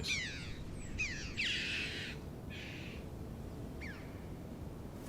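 Red-billed choughs calling: several short calls falling in pitch and two longer harsh, rasping calls in the first three seconds, then one more falling call about four seconds in.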